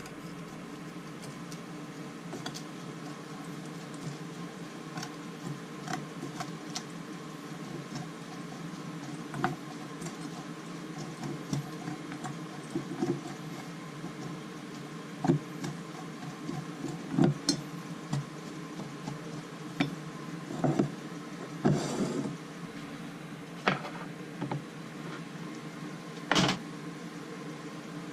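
Scattered sharp clicks and knocks at irregular intervals over a steady background hiss, clustered more densely in the second half.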